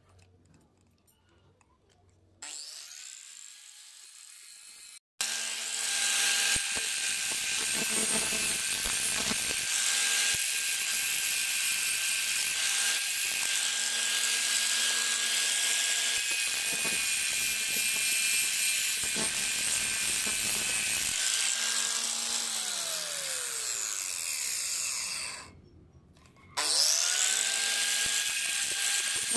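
Electric angle grinder with a flap disc starting up with a rising whine, then running steadily as it grinds a rusty steel scissor blade. Near the end its pitch falls and it stops, then it starts up again with a rising whine and runs on.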